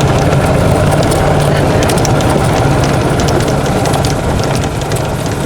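Lawn mower engine running steadily under load while mowing grass, a constant low hum under a loud rushing noise.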